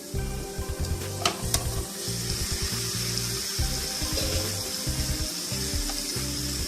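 Chicken pieces going into hot oil and fried onion masala in a pan, with a couple of sharp knocks near the start, then a steady sizzle from about two seconds in.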